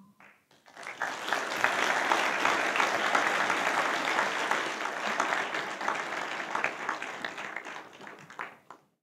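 Audience applauding in a theatre. The clapping starts about a second in, holds steady, then thins out near the end and cuts off.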